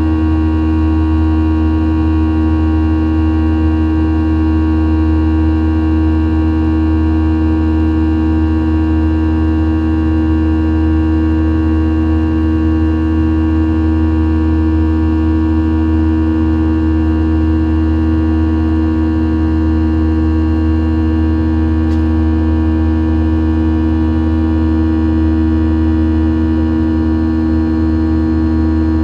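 Boeing 737-800's CFM56-7B turbofan engines running steadily in the climb, heard inside the cabin beside the wing: a deep rumble under several constant whining tones.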